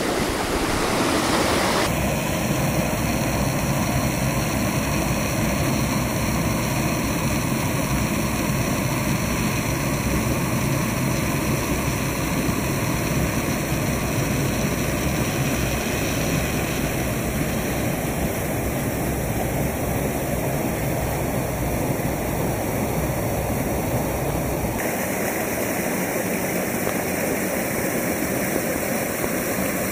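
Creek water rushing steadily over rocks and small falls. The character of the rush changes abruptly about two seconds in and again near the end.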